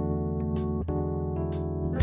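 Background music: sustained chords that change about once a second, with a light high tick between them.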